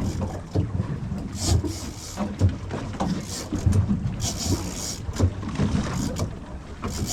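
Fishing boat's engine running steadily with a low hum, with short bursts of hiss and a few clicks over it.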